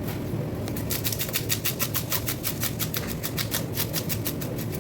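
Rapid, evenly spaced scraping strokes, about seven a second, over a steady low hum.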